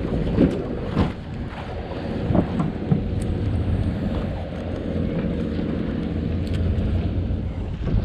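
Wind buffeting the microphone over a steady low rumble and water noise aboard a small fishing boat, with a few light knocks in the first few seconds.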